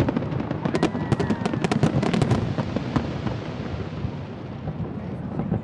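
Fireworks bursting: a rapid run of sharp bangs and crackles over the first couple of seconds, thinning out into a fading rumble with only a few scattered pops.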